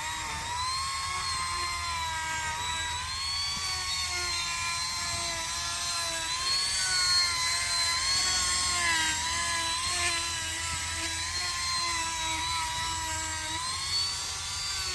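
Small high-speed electric rotary tool whining steadily as it grinds down a pot-bellied pig's hooves, its pitch dipping and rising slightly as it bears on the hoof.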